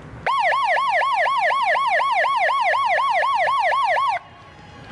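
Electronic siren on a fast yelp, its pitch sweeping up and down about four times a second. It starts suddenly and cuts off suddenly after about four seconds.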